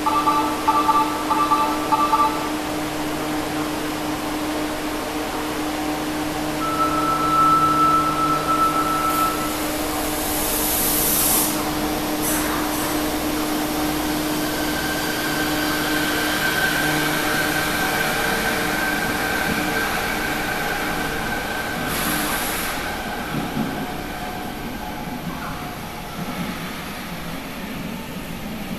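Fukuoka City Subway 3000 series linear-motor train at a station platform: a two-tone chime sounds, then a steady electronic tone and a hiss as the doors close. The train pulls out with a high whine from its drive that fades as it leaves.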